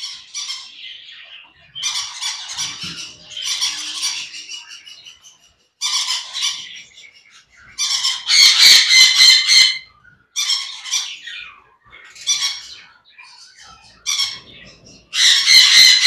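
Caged parrots, sun conures among them, squawking in a string of loud, harsh calls, each from half a second to two seconds long, loudest about halfway through and again at the end.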